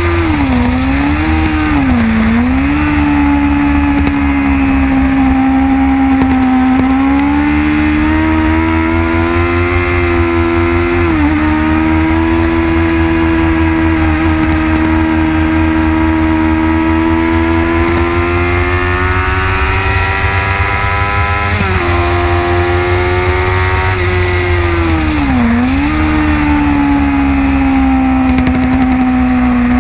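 Onboard sound of a 2006 Kawasaki ZX-6R 636's inline-four engine under load on track, its note rising and falling with the throttle and dropping sharply about 11 and 22 seconds in, over a steady rumble of wind on the microphone.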